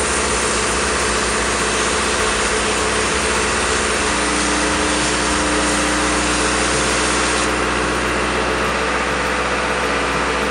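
A machine's engine or motor running steadily, with a loud even hiss over it. The highest part of the hiss drops away about seven and a half seconds in.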